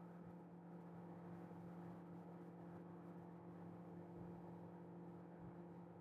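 Panasonic inverter microwave oven running: a faint, steady low hum.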